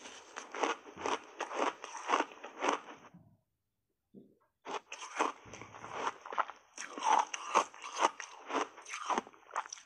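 Close-miked crunching and chewing of a frozen buckwheat ice bar coated in matcha powder, sharp crunches about three a second. The sound cuts out completely for about a second and a half near the middle, then the crunching resumes.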